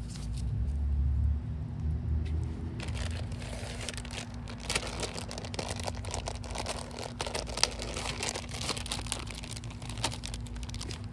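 Plastic food wrapping crinkling and rustling as it is handled, with many irregular small crackles and clicks. A low rumble fills the first few seconds.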